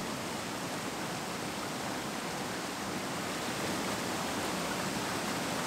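Whitewater rapids of a mountain river pouring between boulders: a steady, unbroken rush of water.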